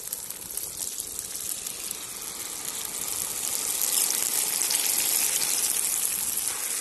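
Cream beaten with egg poured into a hot kazan of fried potatoes and pork, hissing and sizzling as it hits the pan. The sizzle grows louder over the second half.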